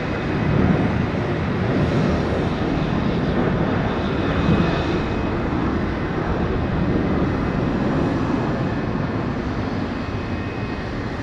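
Airplane engine running steadily, a dense drone with a faint high whine. It starts abruptly and eases off slightly near the end.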